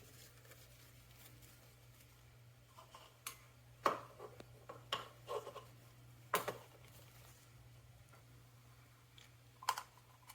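Scattered light clicks and knocks of hard objects being handled, a handful of them bunched in the middle and one more near the end, over a steady low hum.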